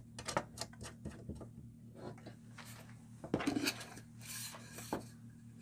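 Steel bolts and a cap nut clicking as they are handled, with a brief scraping rub a little after four seconds as the steel barn-door track bar and a pine standoff block are handled and fitted together.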